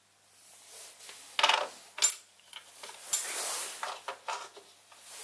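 Small steel machine parts handled on a milling machine's rotary table and chuck: a few sharp metallic clinks and taps, the loudest two about a second and a half and two seconds in, with a brief rustling noise just after the middle.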